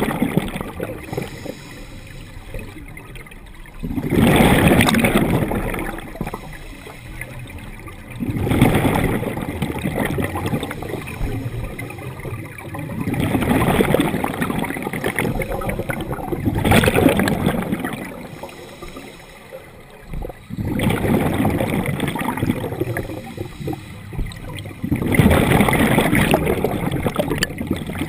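Scuba divers' exhaled bubbles gurgling from open-circuit regulators underwater, a loud bubbling surge every three to four seconds in time with breathing, quieter between breaths.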